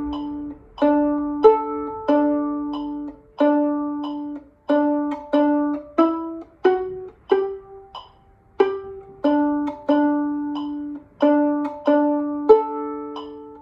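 Violin played pizzicato: single plucked notes of a simple bass line, one or two a second, each ringing briefly and dying away, with a metronome ticking softly in time.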